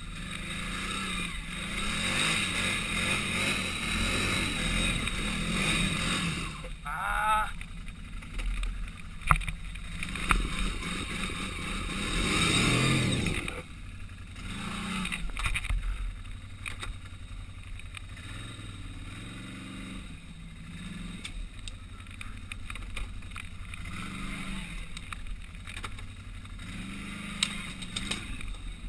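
Can-Am ATV engine running at low speed and revved in bursts while the quad is worked through a tight, steep trial section. It is louder for a few seconds early on and again around the middle, then settles to a quieter idle with small rises in revs.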